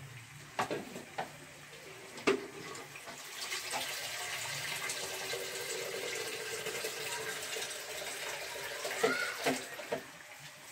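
Water running from a kitchen tap into a container for about five seconds, after a few light knocks, one sharper knock about two seconds in.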